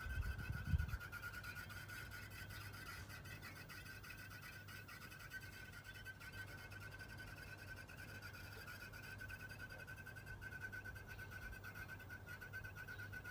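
Toyota Aqua (NHP10) air-conditioning system making a steady bubbling, popping noise with a fine flutter, over a low hum; a single low thump comes about half a second in. A dealer judged it the normal sound of refrigerant gas circulating through the A/C, nothing to worry about.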